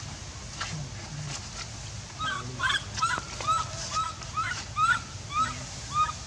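Infant monkey crying: a run of about ten short, squeaky calls, each rising then falling, about two a second, starting about two seconds in. It is the distress wailing of an infant left alone by its mother.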